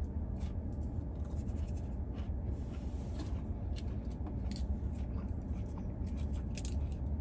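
Soft rustling and small scattered clicks of paper fast-food packaging being handled while french fries are eaten, over a steady low hum.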